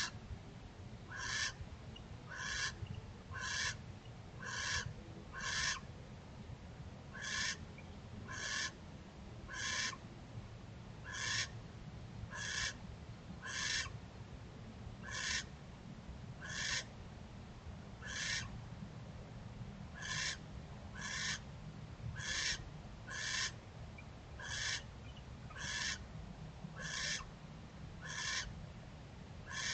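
Barn owl calling: a long run of short, raspy calls, each well under half a second, repeated about once a second, over a steady low background rumble.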